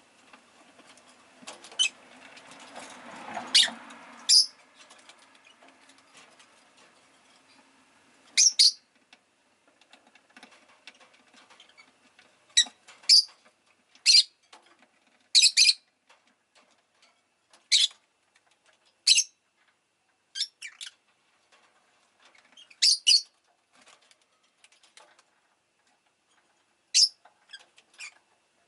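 Rosy-faced lovebird giving short, sharp, high chirps, some single and some in quick pairs, at irregular gaps of one to a few seconds. A swell of background noise sits under the first few seconds.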